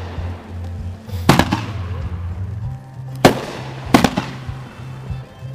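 Aerial firework shells bursting with sharp bangs: one about a second in, another about three seconds in, and two close together about a second later. Steady low-pitched background music runs underneath.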